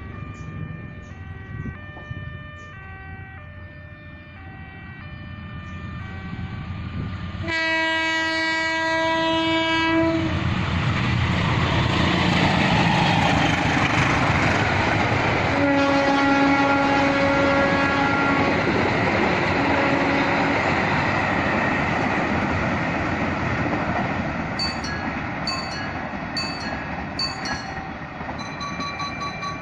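A passenger train's locomotive horn sounds one long blast about a quarter of the way in. The train then runs past with a loud, steady rumble of wheels on rail, and the horn sounds again about halfway through, a long blast followed by a short one. Before the first horn, electronic tones step up and down in pitch.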